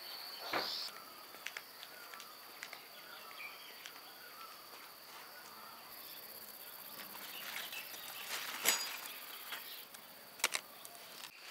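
Garden ambience: a steady high-pitched insect drone, like crickets, with faint bird chirps. A few sharp clicks or knocks cut through it, about half a second in, around two thirds of the way through and near the end.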